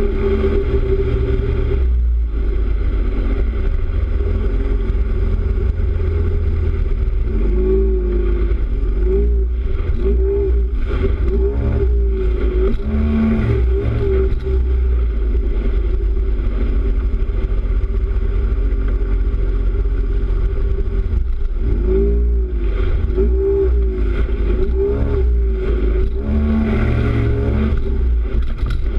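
A tuned 40 hp Yamaha two-stroke outboard motor running hard, driving a RIB at speed over the rush of water. Its pitch wavers up and down in repeated swoops through the middle and again near the end.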